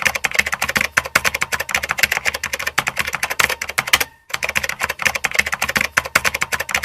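Rapid run of typing clicks, like keys on a keyboard, stopping briefly about four seconds in and then going on.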